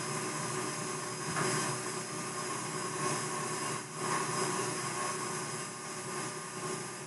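Stand mixer running steadily at a low speed, whisking egg whites until foamy.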